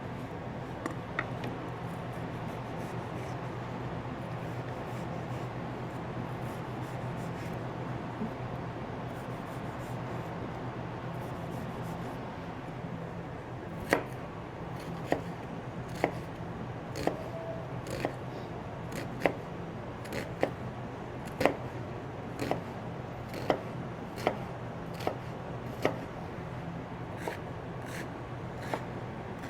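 Knife dicing an onion on a cutting board: quiet slicing at first, then sharp knocks of the blade on the board at roughly one a second from about halfway through, over a steady low hum.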